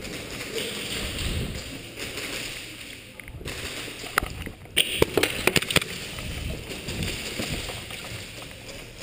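Rustling movement noise close to the microphone, with a quick run of about half a dozen sharp snaps a little after halfway through.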